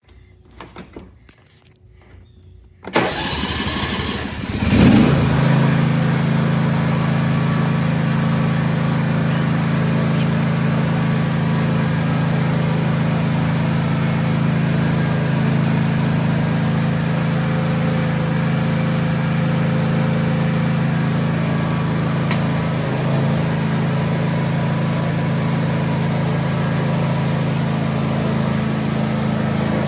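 John Deere X304 lawn tractor's engine starting about three seconds in after a few faint clicks, picking up speed within the next two seconds, then running steadily.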